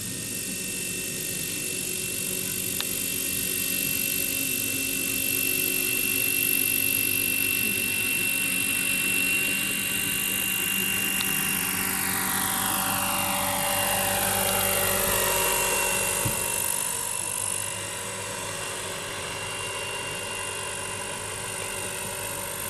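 Scale RC Airwolf model helicopter in flight: a steady high-pitched whine with rotor sound. About halfway through it passes close by and its pitch falls steeply, and it then grows quieter as it flies away.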